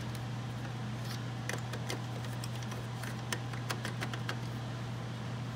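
Light, scattered clicks and taps of hard plastic copier parts being handled as a guide bracket is worked back into place, over a steady low hum.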